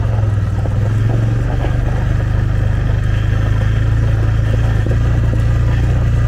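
Quad (ATV) engine running steadily under way, a constant low drone with no break.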